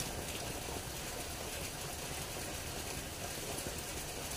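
Steady running water from a small stream, an even hiss with no breaks.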